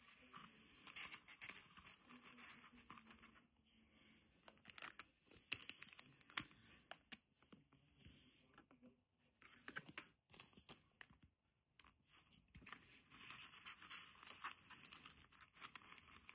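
Faint rustling and crinkling of tissue paper and corduroy fabric as a scrunchie is pressed into a cardboard mailer box, with scattered light taps against the box. It is busiest early and again late, thinning out in the middle.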